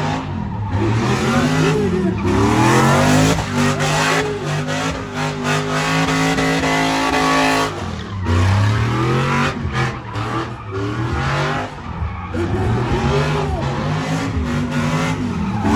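Car engine revving hard with the tires spinning and squealing. The revs are held high for several seconds, drop about halfway through, then climb and fall again.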